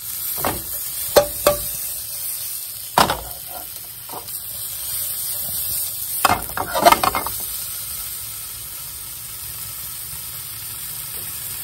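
Small wiener sausages sizzling in a frying pan with a steady hiss, after steam-frying under a lid. Sharp clacks of a utensil turning them against the pan come every second or so early on, then in a quick cluster about six to seven seconds in.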